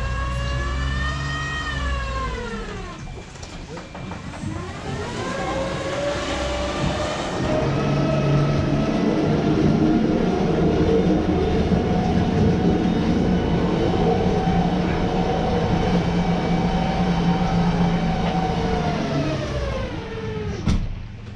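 Glass-bottom tour boat's motor being throttled for manoeuvring. Its whine drops in pitch over the first few seconds, climbs again a few seconds later, holds steady, and winds down near the end.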